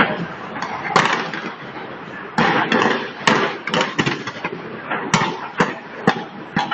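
Aerial fireworks shells bursting overhead in quick succession: sharp bangs every half second to a second over a continuous noisy rumble of crackle.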